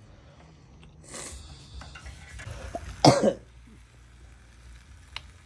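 A person coughs once, about three seconds in. A short burst of hiss comes about a second in.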